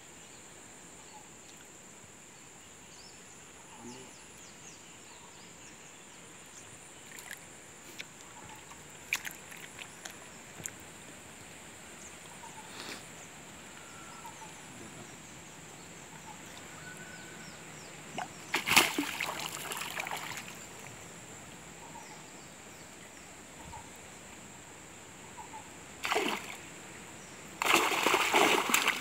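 Water splashing and sloshing around a cast net being hauled in through shallow stream water, with scattered small drips. There is a loud burst of splashing a little past halfway, and heavy splashing near the end as the net is gathered up in the water.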